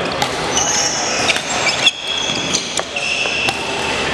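Badminton doubles rally: several sharp smacks of rackets hitting the shuttlecock and high squeaks of sports shoes on the gym floor, over a steady background hum of a large hall.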